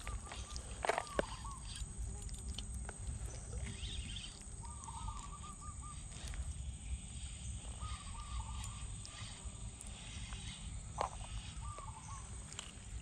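A bird calling in short warbling phrases, about four times, one every three to four seconds, over a low outdoor rumble with a few faint clicks.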